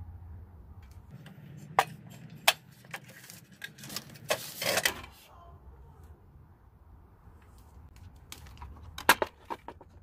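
Handling noise from the sheet-metal casing of a portable gas burner: a few sharp clicks and knocks about two seconds in, a longer rustling scrape about four to five seconds in, and another quick cluster of clicks near the end.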